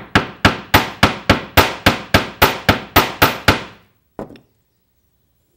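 Steel hammer striking the end of a short piece of 18-gauge wire on a steel block: about fourteen quick, even blows, roughly three or four a second, each with a bright metallic ring, then one lighter tap. The blows flatten the wire end and work-harden it.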